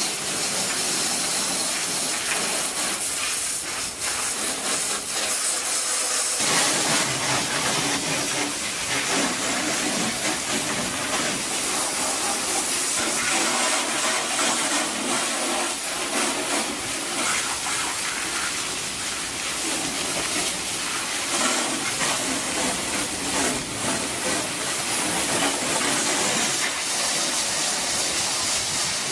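Pressure washer spraying water against the inside of a livestock trailer: a steady hiss of spray that changes character about six seconds in.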